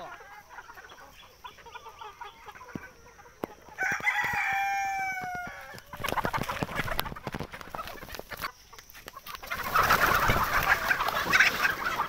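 Free-range desi chickens clucking, with a rooster crowing once for about two seconds, about four seconds in. Then comes a flurry of wing flapping and scratching close by, and a loud rustling noise over the last couple of seconds.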